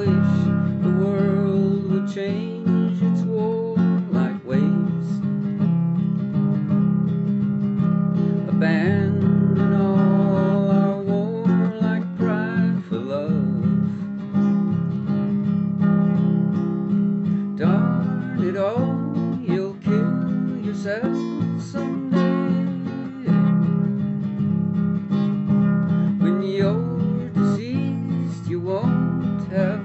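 Acoustic guitar strummed steadily, an instrumental passage of a song, with notes sliding upward here and there.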